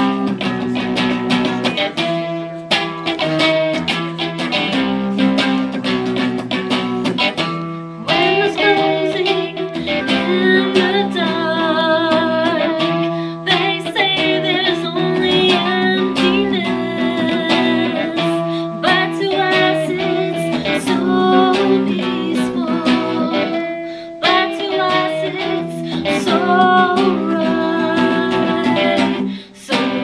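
Live song: an electric guitar strummed through an amplifier, with a woman singing over it.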